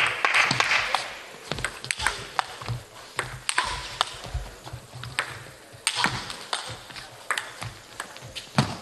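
Table tennis rally: the celluloid ball clicks sharply and irregularly against the paddles and the table, back and forth for several seconds. In the first second there is also a wash of background noise that dies away.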